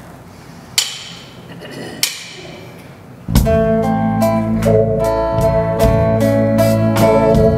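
Church praise band starting a song. Two ringing chord hits come first; about three seconds in the full band enters with guitars and keyboard over a steady beat of regular strikes.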